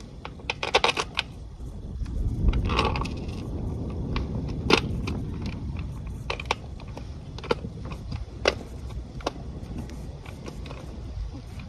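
Small metal clinks and rattles of stainless steel bolts and washers being handled and set into the bolt holes of a plastic well cap: a couple of short clusters of rattling, then single sharp clicks about a second apart.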